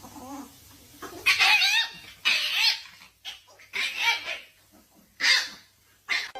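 An animal calling: a series of short, pitched calls with brief pauses between them.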